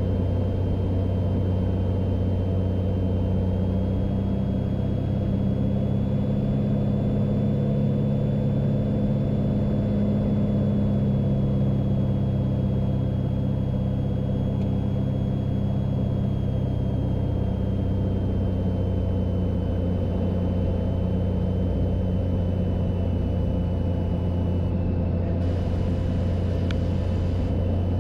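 Cessna 182's piston engine and propeller droning steadily in the cockpit during the approach to land. The pitch rises slightly for a while and then settles back.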